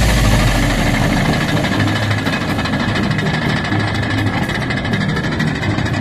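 Caterpillar D6T XL bulldozer's diesel engine running steadily as it pushes and grades dirt, with a low hum and fine regular ticks.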